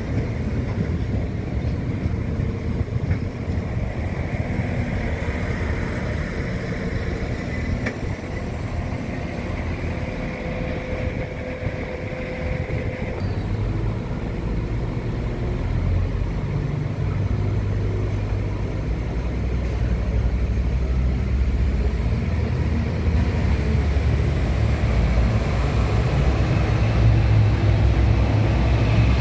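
Diesel engines idling: a low, steady rumble from the stopped railcar with a faint whine over it, then a Goldline Irizar coach's diesel engine running. The rumble grows louder through the second half and is loudest near the end.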